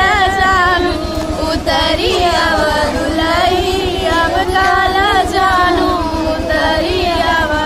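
A group of women singing a traditional mangal geet, an auspicious wedding song, together in a continuous, melodic chorus.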